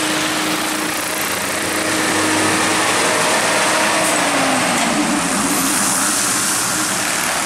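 Heavy diesel cargo truck climbing a steep uphill bend close by, its engine working under load, with the engine note falling in pitch about four to five seconds in as it passes. Other climbing traffic runs around it.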